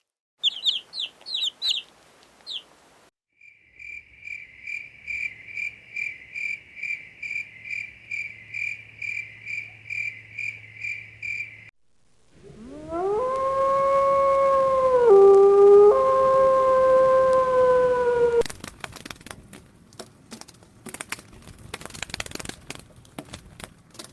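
A run of animal calls in turn: quick high chirps, then a high call repeated about twice a second for some eight seconds, then a loud, long drawn-out call with a shift in pitch partway through, followed by scattered clicks and rustling.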